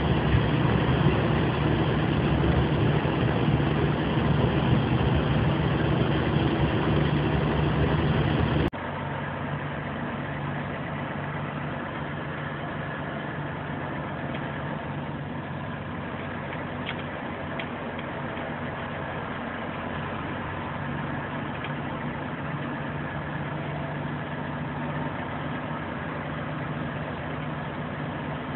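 DAF semi-trailer truck's diesel engine heard from inside the cab: a steady engine hum with road noise at highway speed, which cuts off abruptly about nine seconds in to a quieter, steady engine drone at low speed.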